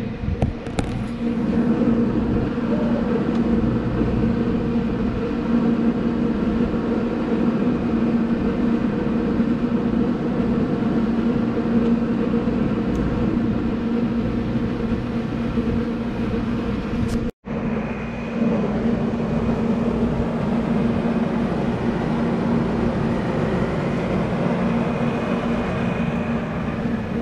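Engine or generator running steadily at a constant pitch, a low droning hum, with a brief dropout about two-thirds of the way through.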